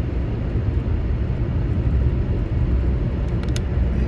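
Steady low rumble of a car driving on a wet road, heard from inside the car: tyre and road noise with the engine underneath. A few faint ticks come near the end.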